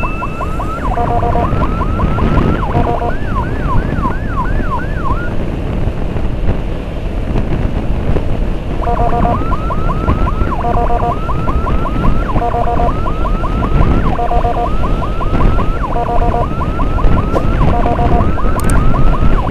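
Electronic emergency siren of an ambulance escort, cycling through a repeating pattern of quick rising chirps and stepped multi-tone blasts roughly every second and a half, with a short run of slower up-and-down wails a few seconds in. Steady road and wind rumble from the moving motorcycle runs underneath.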